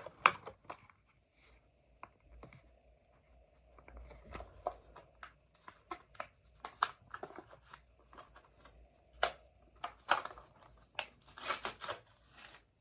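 A Hot Wheels blister-card package being opened by hand, its plastic blister and cardboard crackling, clicking and tearing in short scattered bursts. There is a denser run of crinkling near the end.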